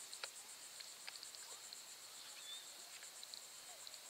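Faint, high, evenly pulsing insect trill, like crickets, with a few soft clicks.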